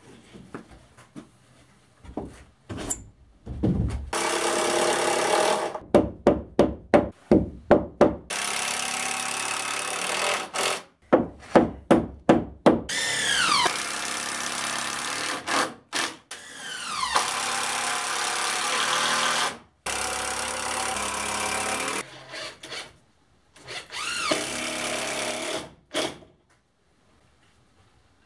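Power drill run in a series of bursts. There are quick trigger blips and several longer runs of a few seconds, and several runs end in a falling whine as the motor spins down.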